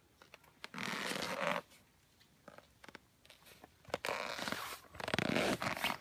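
Several bursts of rustling and crunching from a person moving about in snow: one about a second in, then a run of them in the last two seconds.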